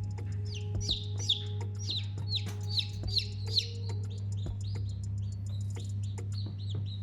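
Domestic baby chicks peeping, a quick run of short high peeps that each fall in pitch, several a second, over a steady low hum.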